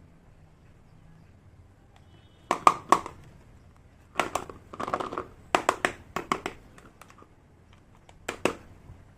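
Small toy kitchen pieces being handled, with sharp plastic clicks and clacks in four short flurries.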